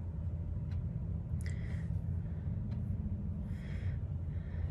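A steady low background hum with three soft breaths: one about a second and a half in, one near four seconds and one near the end.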